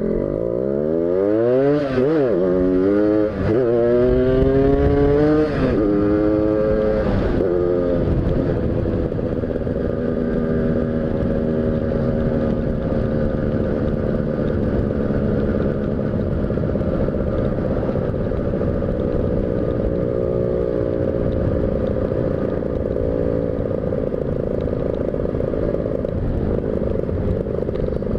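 Tuned motorcycle engine accelerating hard through the gears: the pitch climbs and drops back about four times in the first eight seconds as the rider shifts up, then settles into a steady run at speed. Heard from a helmet-mounted camera.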